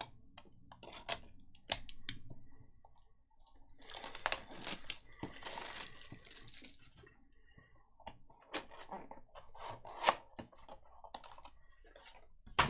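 Trading cards and packs being handled: a scatter of sharp clicks and card snaps, with a longer rustling, tearing stretch in the middle that sounds like a pack wrapper being torn open.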